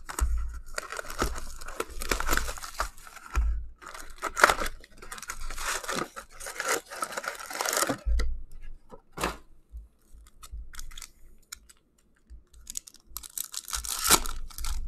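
Plastic wrap crinkling and tearing as a hobby box of SP Authentic hockey cards is unwrapped and opened, with cardboard handling and a few dull thumps. After a quieter stretch of light clicks, a foil card pack is ripped open near the end.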